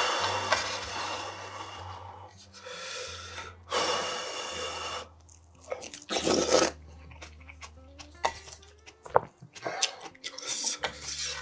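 Slurping spicy ramyeon broth from a wooden spoon: two long slurps in the first half and a short, loud one about six seconds in, then chewing and small clicks of the spoon in the pot. Quiet background music under it.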